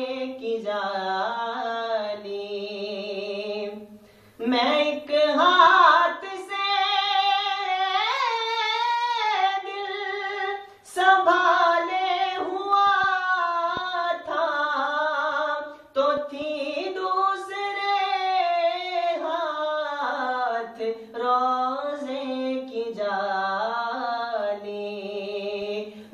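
A man singing a naat solo, with no instruments: long ornamented phrases of wavering, held notes, broken by short breaths about four, ten and sixteen seconds in.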